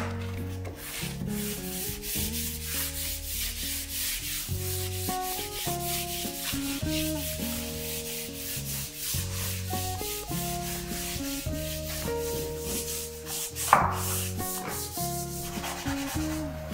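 Dryer sheet rubbing along painted baseboard trim in repeated wiping strokes, with one louder swish near the end, over soft background music.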